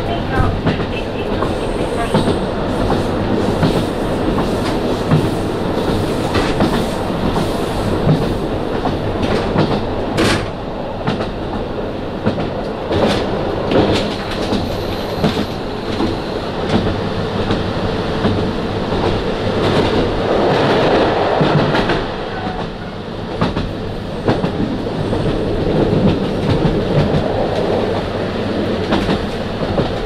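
KiHa 40 diesel railcar running at speed, heard from inside the car: a steady rumble of wheels and engine, with the clickety-clack of the wheels over rail joints.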